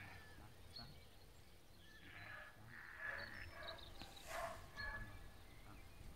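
Sheep and lambs bleating faintly, several short calls, the loudest about four seconds in.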